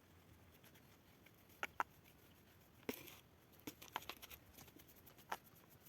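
A few sharp, scattered clicks and knocks of objects being handled, over a quiet background: two close together early, a cluster a little past the middle and a last one near the end.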